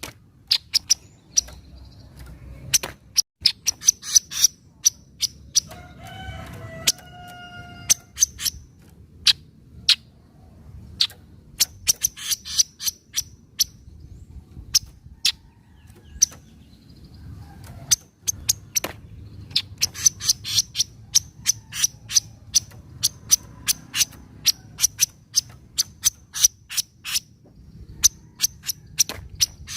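Kaso-kaso bird giving its sharp 'nyecret' chatter, a rapid ticking call repeated in quick runs with short pauses between them. About six seconds in, a longer, drawn-out pitched call sounds in the background for a couple of seconds.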